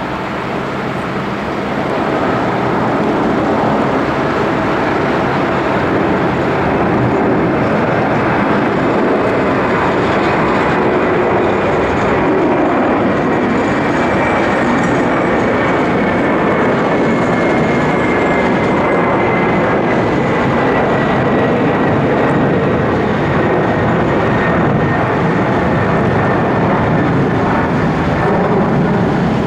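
Airbus A300-600's twin jet engines at takeoff thrust as the airliner climbs out overhead: loud, steady jet engine noise that builds over the first couple of seconds, with a faint high whine slowly falling in pitch.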